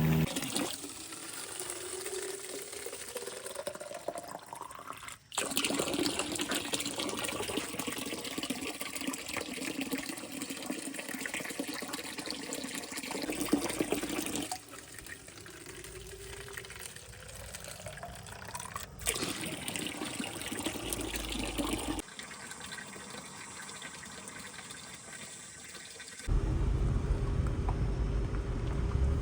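Running water, a steady rushing noise that changes abruptly several times. A louder low, steady rumble takes over near the end.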